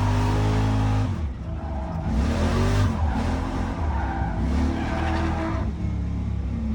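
6.0-litre LS V8 in a BMW 335i driven hard on a race track, its revs climbing and falling several times, dropping off about a second in and again near the end.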